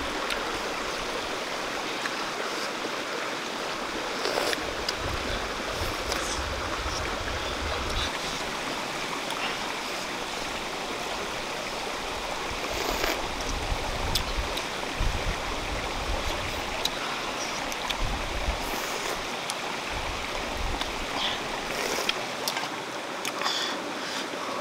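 Shallow stream running over rocks: a steady, even rush of water, with brief low rumbles now and then.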